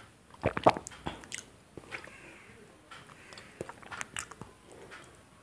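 Slurping and swallowing tomato soup sipped from a stainless steel bowl: a handful of short slurps with pauses between them, the loudest about half a second in.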